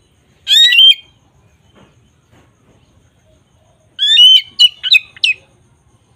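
Bird calls: one short call about half a second in, then a longer run of several quick calls about four seconds in.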